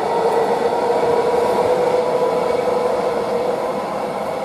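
Koleje Mazowieckie electric multiple unit pulling away along the track, its traction drive giving a steady whine over the running noise. The sound slowly fades as the train recedes.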